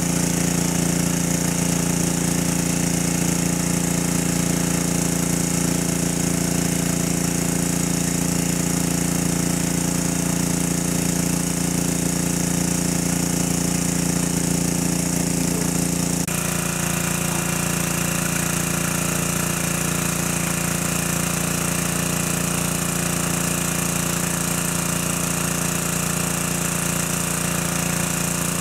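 Small engine-driven water pump running steadily, pumping water. Its tone shifts slightly a little past halfway.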